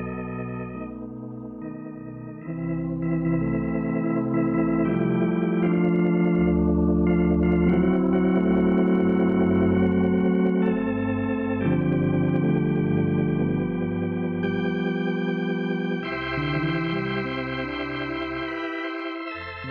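Organ music playing slow, sustained chords that change every second or two.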